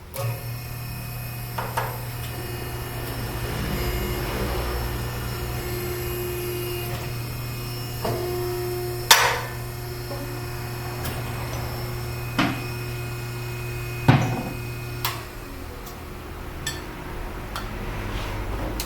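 A steady machine hum that stops about fifteen seconds in, with about six sharp knocks of tools on metal compressor parts scattered through it.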